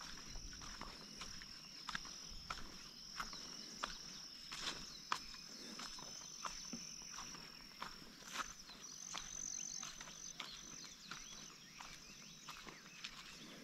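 Footsteps on a dirt and grass farm track, a sharp step sound about twice a second, over a steady high-pitched insect trill.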